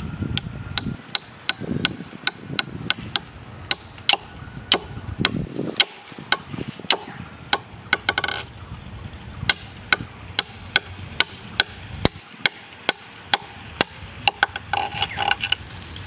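Hammer driving metal nails into a coconut palm trunk: a steady run of sharp blows, about two a second, some of them ringing briefly.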